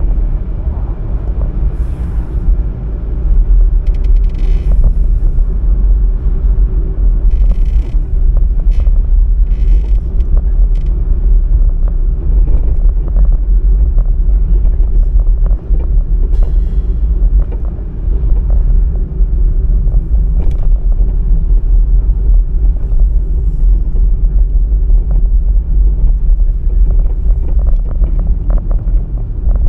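Steady low rumble of a car driving along a road, with a few brief hissing swishes as other traffic passes.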